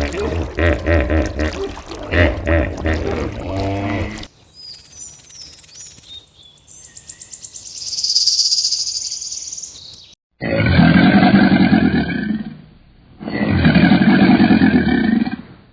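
A run of different animal calls cut one after another: about four seconds of rapid, pulsing pitched calls, then several seconds of high chirping and whistling, then two long loud calls of about two seconds each.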